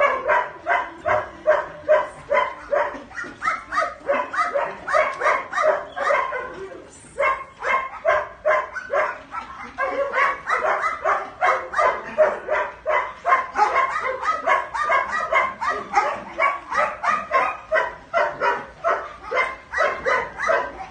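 A dog barking over and over at a fast, even pace, about three barks a second, with a short pause about seven seconds in.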